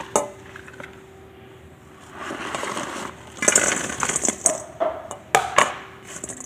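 Fried chicken pieces tipped off a plate into a stainless-steel mixing bowl, rattling in about three and a half seconds in. Sharp clinks against the plate and metal bowl come near the start and again toward the end.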